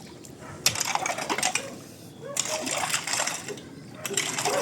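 Rocks and gravel clattering and scraping as they are moved out of a creek bed, in three bursts about a second and a half apart.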